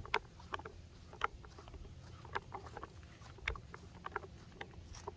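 Footsteps walking over dry bank ground, a scatter of light, irregular crunches and ticks over a low rumble.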